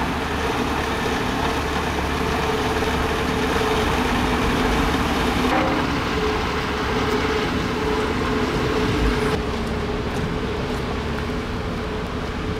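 Engine of road-repair machinery running steadily: a constant drone with a held note over an even street hiss. The background shifts abruptly about five and a half and nine seconds in.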